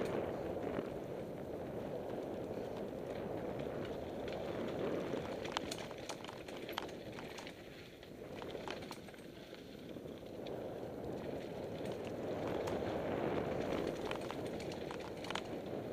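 Mountain bike rolling down dirt-and-gravel singletrack: a steady rumble of knobbly tyres on the trail mixed with wind on the microphone, easing off about eight seconds in. Sharp rattles and clicks from the bike over rough ground come in a cluster about six to seven seconds in and again near the end.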